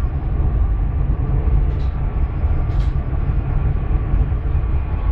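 Inside a Dubai Metro train cabin: a steady, loud low rumble of the train running along the elevated track. Two faint short clicks come about two and three seconds in.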